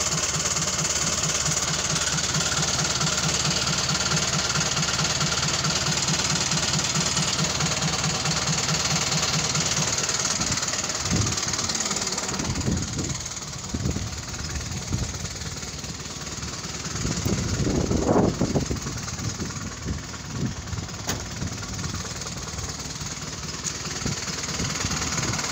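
Toyota four-cylinder diesel engine idling with an even, rhythmic shake heard at the exhaust, which the owner has from the moment it starts; the mechanic suspects a weak cylinder. About ten seconds in the steady pulsing gives way to irregular knocks and rustling.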